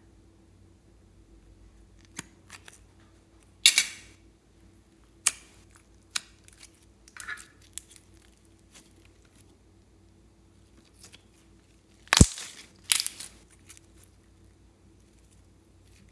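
Clear glitter slime being squeezed and pressed by hand in a glass bowl: scattered sharp pops and clicks as trapped air bursts, with the loudest ones about four seconds in and again about twelve to thirteen seconds in.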